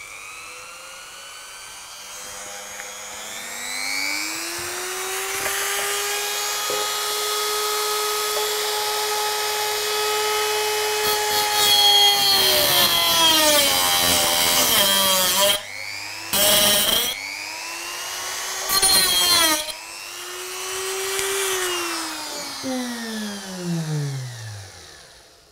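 Dremel rotary tool with a cut-off disc spinning up and running at speed. Its pitch sags and the sound turns loud and rough as the disc cuts through a model railway rail. After a couple of short stops it is switched off and winds down with a falling whine.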